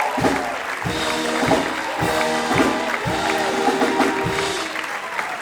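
Instrumental dance music with a regular beat and gliding synth-like tones.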